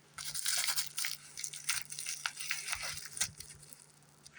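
Bubble wrap being handled and pulled off a small packed item, crinkling and crackling, dense at first and thinning to a few scattered crackles near the end.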